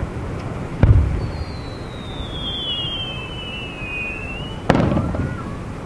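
Aerial fireworks shells bursting: two sharp booms about four seconds apart. Between them a high whistle glides down in pitch for about three seconds.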